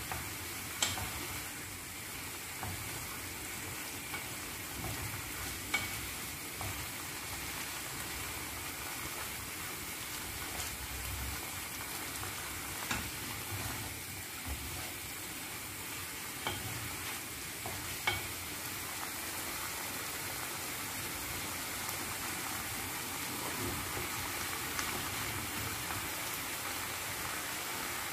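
Chicken breast pieces and onion sizzling steadily in oil in a nonstick frying pan while being stirred with a wooden spatula, which knocks sharply against the pan a few times.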